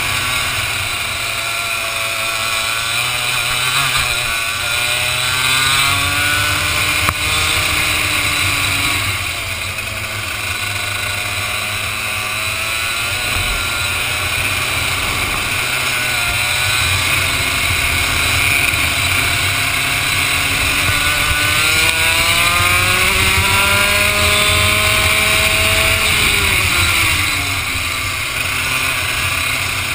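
Vortex ROK two-stroke kart engine heard from the driver's onboard camera, its pitch climbing for several seconds as it accelerates, then dropping away as the driver lifts off, twice over. A steady rush of wind noise lies over the engine throughout.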